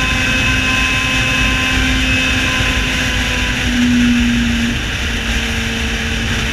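Yamaha XJ6 Diversion's inline-four engine running at steady road speed with a loud exhaust note; the note rises a touch about four seconds in, then eases slightly lower, over rumbling wind noise.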